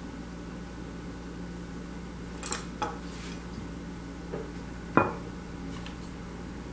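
A few light clinks and knocks as a hand-painted glass bottle is turned over and handled on a stone worktop. The loudest knock comes about five seconds in.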